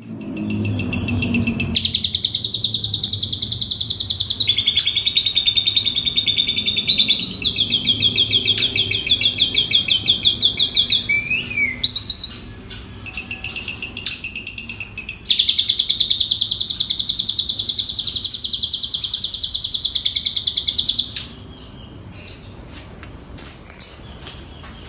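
Asian pied starling (jalak suren) singing long runs of very rapid, high trills, chained one after another with a brief downward-sliding note in the middle, then dropping to softer scattered ticks near the end.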